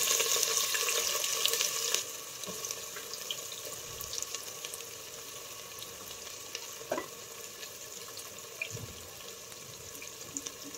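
Chopped onions sizzling in hot mustard oil with whole spices. The sizzle is loud at first and settles to a steadier, quieter sizzle about two seconds in, with a few faint clicks here and there.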